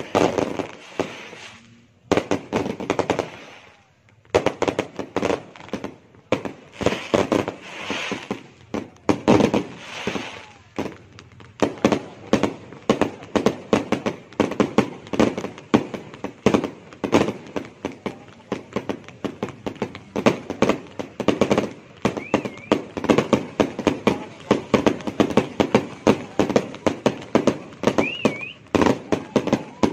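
Aerial firework shells bursting in a run of sharp bangs, in scattered clusters at first, then coming several a second in a near-continuous barrage from about twelve seconds in.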